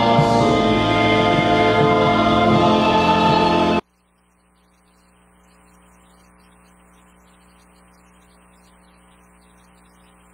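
Congregation singing the last verse of a hymn with instrumental accompaniment, which cuts off abruptly about four seconds in; then only a faint steady hum.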